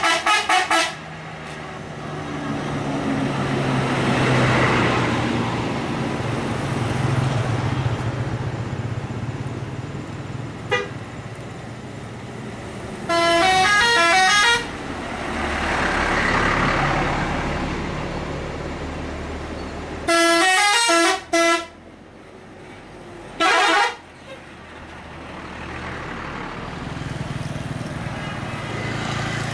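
Tour buses sounding telolet horns, the multi-tone musical bus horns of Indonesia, playing short stepping melodies of a second or so. There are four runs: at the start, near the middle, and twice about two-thirds through. Between them bus engines and road noise swell and fade as the buses pass.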